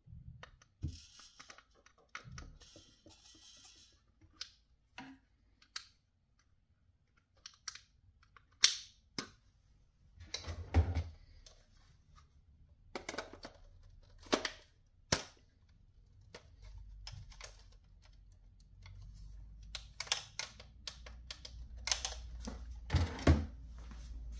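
Irregular plastic clicks, snaps and knocks of a toy gel blaster being handled and its parts fitted, with a few louder sharp clacks. A low rumble sets in during the second half.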